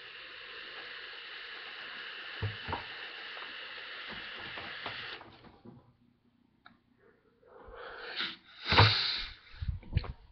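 A long drag on a Plume Veil rebuildable dripping atomizer: a steady airy hiss of air drawn through its two open air holes for about five seconds, then a pause, then a forceful exhale of vapour near the end, followed by a few low thumps.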